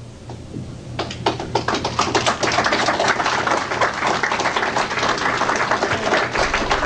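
Audience applauding. A few claps come about a second in and quickly build to full, dense applause that carries on.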